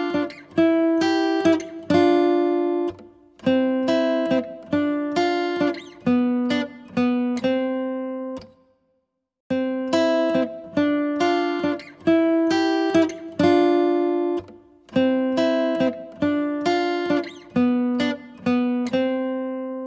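Background music: a looping tune of plucked-string notes that start sharply and fade away, breaking off for about a second some eight seconds in and again near the end.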